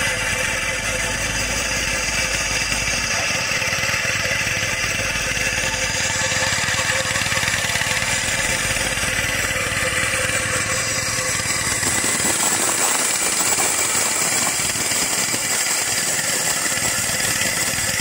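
Caterpillar 424B backhoe loader's diesel engine running steadily as the machine moves.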